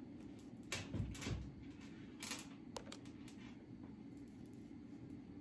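Handling noises: a few soft knocks and rustles as a rubber slide sandal with a marabou feather boa glued to its strap is moved and set down on a tabletop, over a faint steady room hum.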